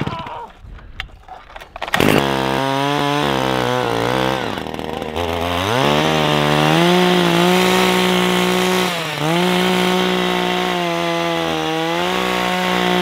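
Gas-powered ice auger's small engine starting up about two seconds in and running at a low idle. It is then throttled up to a steady high pitch as the auger bores a hole through the lake ice, with the engine note dipping briefly once or twice.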